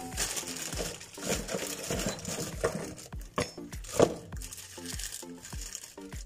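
Plastic bag crinkling and rustling as it is handled, with a sharp knock about four seconds in, over background music with a steady beat.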